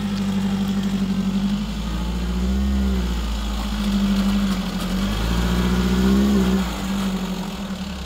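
Vehicle engine running hard, its pitch rising and falling a few times as the throttle is worked.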